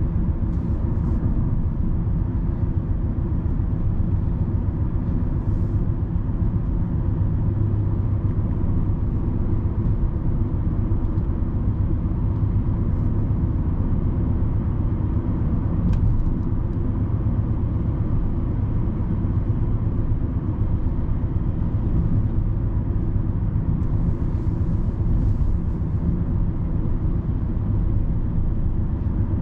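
Steady low rumble of road and tyre noise with engine hum, heard inside a Hyundai Sonata's cabin while it cruises.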